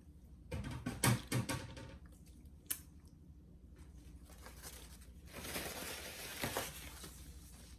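Close-miked eating sounds: cutlery clicks and taps against the food container in a quick cluster, one more click a little later, then a stretch of soft scraping and rustling as the salmon is worked apart.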